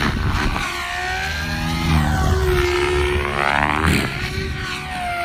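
SAB Goblin 700 electric RC helicopter flying 3D aerobatics: brushless motor whine and main-rotor blade noise, the pitch sweeping up and down continuously as it manoeuvres.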